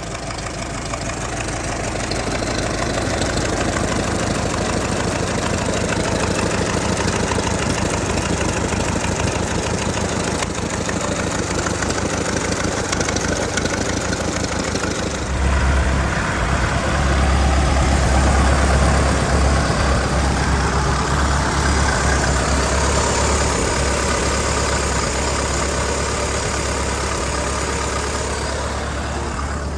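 1924 Ford Model T's four-cylinder engine running steadily; about halfway through its low drone grows louder and fuller and stays that way.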